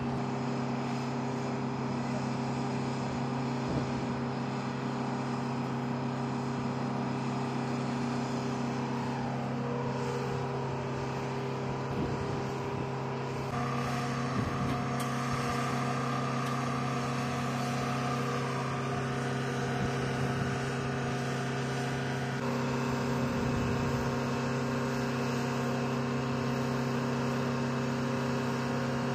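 Steady machine drone of running equipment, a stack of constant hum tones with noise over them, with one tone falling in pitch about ten seconds in and the mix shifting slightly twice.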